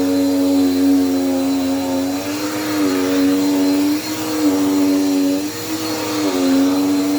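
Dirt Devil Power Max vacuum cleaner running at full power, a steady motor whine over airflow hiss, its pitch dipping and rising slightly every second or two.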